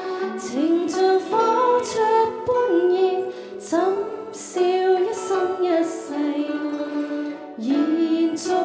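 A woman singing a slow Cantonese pop ballad live into a microphone, with gliding, wavering sung phrases, accompanied by a guzheng ensemble.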